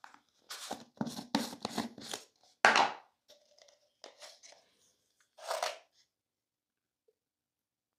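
Plastic screw-top jar being opened by hand: a quick run of short scraping rasps as the lid is twisted off, then a louder crackling rip a little under three seconds in, and one more rustle near the sixth second.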